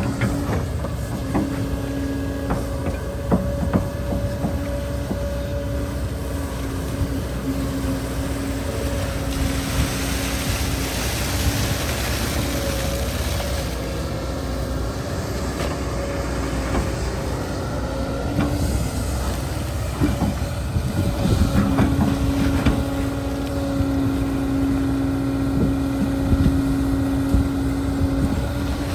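Excavator at work: a steady motor hum with a higher tone above it, broken by scattered knocks and scraping. The hum drops back in the middle and comes in strongly again about two-thirds of the way through.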